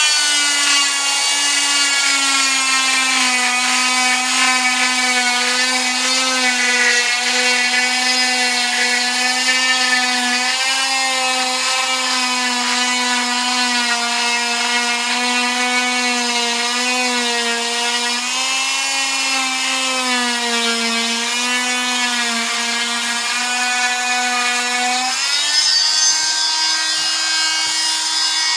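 Electric oscillating cast saw running with a steady whine, its pitch wavering a little as the blade is pressed into and drawn along the cast. About 25 s in the pitch rises and holds higher as the blade comes off the cast and runs free.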